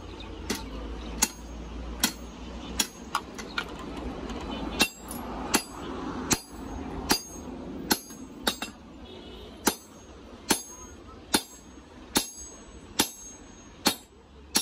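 Blacksmith's hand hammer forging a red-hot dao blade on an anvil: steady, evenly spaced blows about every 0.8 s, each with a short metallic ring, and a few lighter taps between them.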